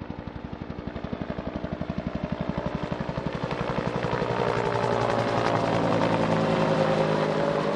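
Bell UH-1H Huey helicopter flying by, its two-blade main rotor beating about ten times a second and getting louder as it approaches. In the second half the rotor and engine tone dips slightly in pitch as it passes.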